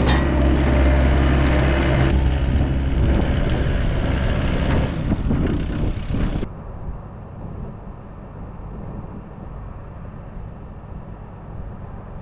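Plow truck engine running close by with loud rushing noise over a steady low hum. About six seconds in the sound drops suddenly to a quieter, muffled engine hum.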